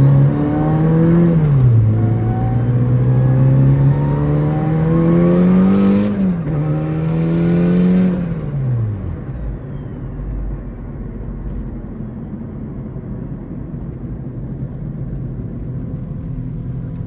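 Turbocharged Honda Civic engine accelerating hard through the gears. Its note climbs three times, dropping at two upshifts, with a high whine rising alongside it. About eight seconds in it lets off and settles to a steady low running rumble.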